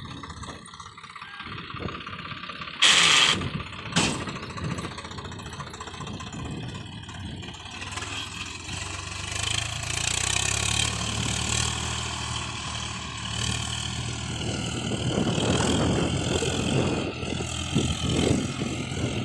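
Swaraj tractor's diesel engine running as it pulls a trolley through a soft, muddy paddy field. The engine note grows steadier and stronger from about halfway in. There are two brief, loud sharp noises about a second apart near the start.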